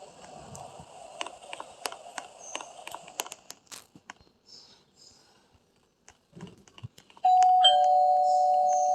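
Two-tone doorbell chime: a higher note, then a lower one, both ringing on and slowly fading, starting about seven seconds in. Before it there are scattered light clicks and rustling.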